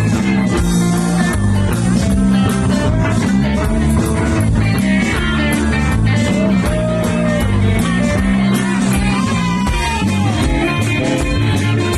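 Rock band playing live, an instrumental passage with guitar to the fore over a steady, dense backing.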